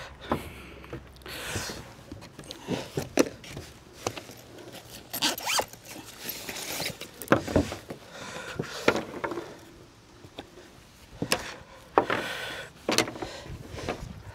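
Irregular bursts of rasping and scraping with sharp clicks from a solar-panel cable being handled and pulled across wooden decking while it is hooked up to a portable power station.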